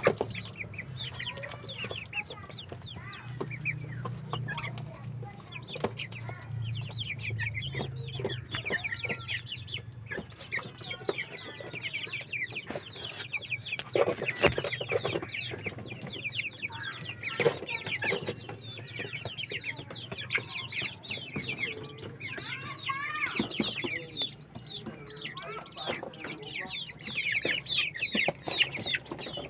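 A flock of six-week-old Black Australorp cockerels peeping and cheeping, many short high calls overlapping constantly, with occasional clucks. A low steady hum runs underneath and fades out about halfway through.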